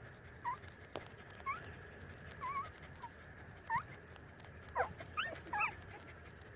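Month-old puppies whimpering while suckling at their mother's teats: about eight short, high squeaks, some rising and one wavering, with the loudest cluster of three near the end.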